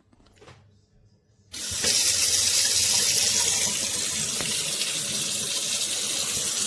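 SOEBIZ pull-down kitchen faucet turned on about a second and a half in, water running steadily into the sink, a little softer after about four seconds.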